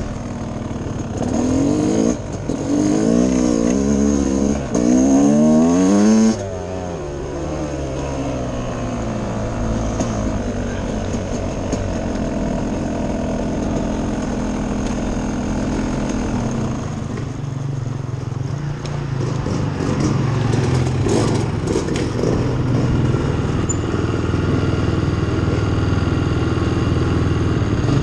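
Dirt bike engine heard from the rider's own bike, revving up and down as it accelerates and shifts for the first six seconds. It then drops to a lower, steadier run at trail speed and picks up again toward the end, with a few rattles about two-thirds of the way through.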